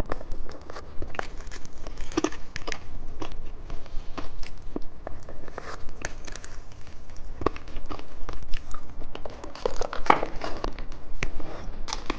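Irregular small crackles and crinkles close to the microphone: a candy being dipped in popping candy and eaten, the popping candy crackling.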